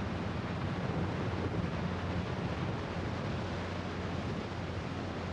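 Strong gusting wind blowing across the course microphone, a steady low rumble of wind noise.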